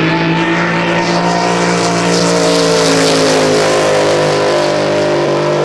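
Racing boat's engine running hard at a steady high speed, a loud held note with a raspy upper edge that shifts slightly about four seconds in.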